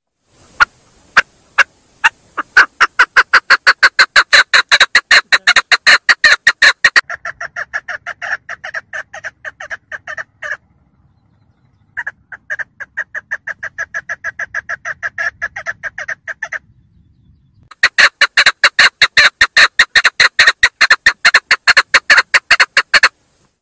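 Female chukar partridge calling: a long run of short repeated 'chuk' notes, about five a second, starting with a few spaced notes. The run goes quieter in the middle and breaks off twice for a second or so.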